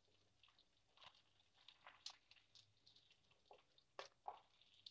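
Mostly near silence, with faint, scattered soft taps and scrapes of a wooden spatula lifting fried paneer pieces from a nonstick frying pan onto a plate; the two clearest come about four seconds in.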